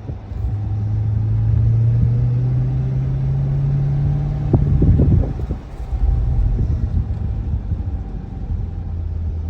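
Chevrolet C8 Corvette's V8 engine running on the move, its note climbing slowly for about four seconds. About halfway through the note drops sharply, and the engine settles into a lower, steady drone.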